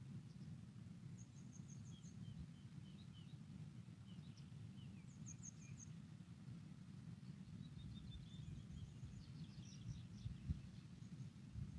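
Faint birdsong: small birds' quick runs of high chirps in three spells, over a low steady rumble.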